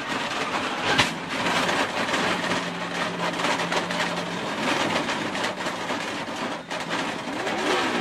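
NASCAR stock car crashing, heard from the car itself: a hard hit about a second in, then a long harsh scraping and sliding noise as it grinds along the wall and skids through its own tyre smoke, with the engine still running underneath.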